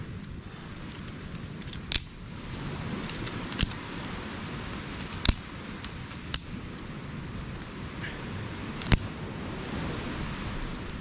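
Dry twigs and sticks snapping sharply about five times, spaced a second or two apart, as a small campfire is fed, over a steady background hiss.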